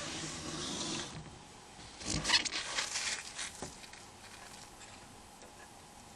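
Small plastic parts of a Nokia N95 phone being handled during disassembly. A soft scraping rustle lasts about a second, then a cluster of small clicks and scrapes follows about two seconds in.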